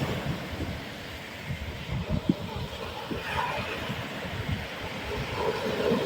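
Sea waves breaking and washing ashore: a steady rush with an irregular low rumble.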